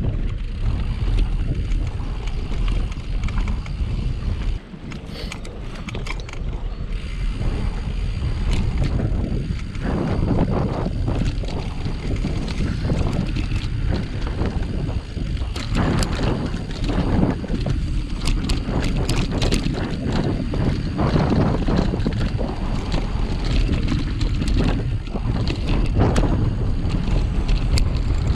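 Wind buffeting the microphone of a camera on a moving bicycle, with rattling and knocking from the bike and its tyres over the bumpy dirt forest trail; the noise dips briefly about four and a half seconds in.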